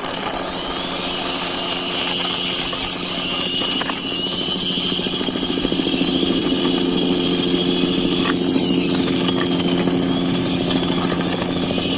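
Electronic sound effects from a toy police helicopter: a steady buzzing engine-like drone with a high wavering tone over it, growing slightly louder about halfway through.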